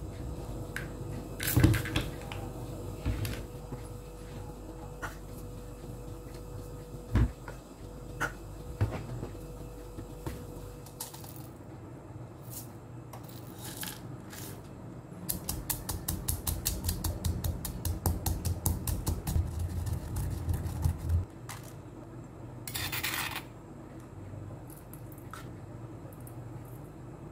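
Kitchen utensils knocking and scraping against dishes. Scattered clinks are followed, in the middle, by about six seconds of quick, even strokes at about seven a second, then a short scrape.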